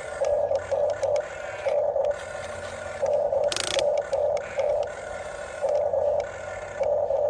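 Huina 1550 RC excavator's small electric gear motors whirring in short stop-start bursts as its functions are worked, with a brief hiss about three and a half seconds in.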